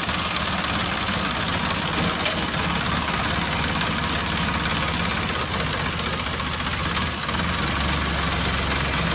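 Diesel tractor engine idling steadily. About seven seconds in it dips briefly, and its low note then comes up stronger.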